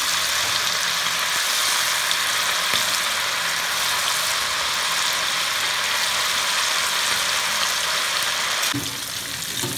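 Masala-coated nethili (anchovies) deep-frying in hot oil in a wok: a steady sizzle that drops off sharply near the end.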